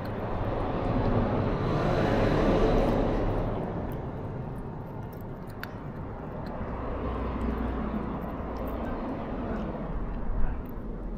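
A passing motor vehicle's engine and tyre rumble swells to a peak about two to three seconds in and fades, then a second, fainter swell follows. A few sharp crunches of a cat chewing dried sardines come through, the loudest near the end.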